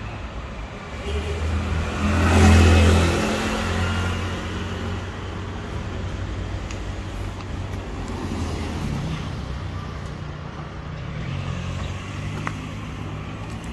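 A motor vehicle's engine running with a steady low hum, growing loudest as it passes about two to three seconds in, then easing off.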